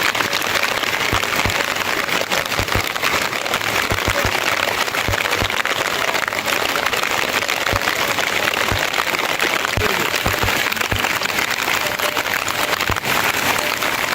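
Heavy rain falling steadily, with frequent low knocks of drops striking something close by.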